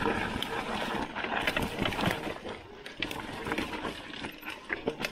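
Mountain bike rolling fast down a rough dirt trail: tyres on dirt and roots with a steady clatter of many small knocks and rattles from the bike over the bumps.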